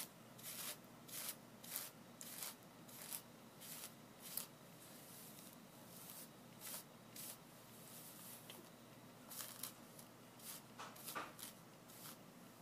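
Hairbrush swishing through long hair in quick repeated strokes, a little under two a second, faint.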